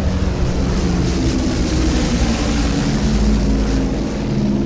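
Airplane engines running with a steady drone of several low tones, under a rushing hiss of air that swells in the middle.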